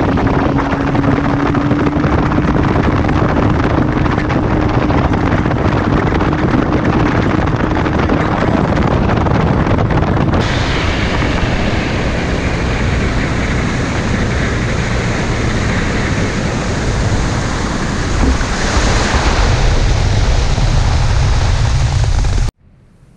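Boat motor running at speed with heavy wind rushing on the microphone and water noise, the engine tone climbing slightly as it pulls. About ten seconds in the sound changes abruptly to mostly wind and water rush, and it cuts off suddenly near the end.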